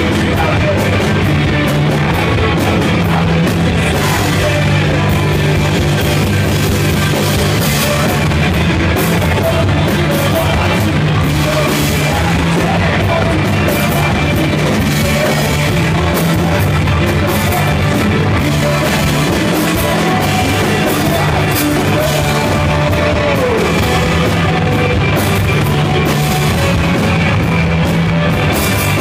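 Live rock band playing loud: electric guitars, bass and drum kit, with a man singing into the microphone.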